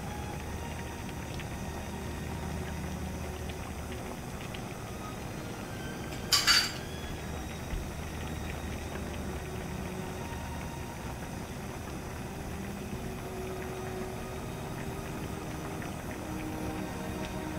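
Dakdoritang (spicy braised chicken stew) bubbling steadily as it simmers in a frying pan, with one brief sharp clatter about six seconds in.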